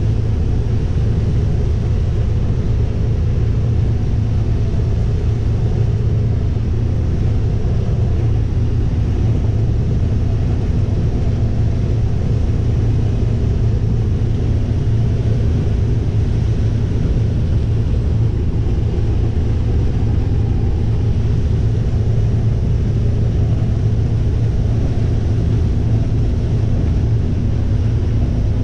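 Combine harvester running steadily in corn, a constant low engine drone with an even mechanical hum that does not change.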